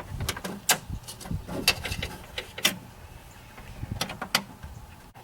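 Scattered sharp clicks and knocks of hands working a door latch cable and its fittings inside a pickup's rear door.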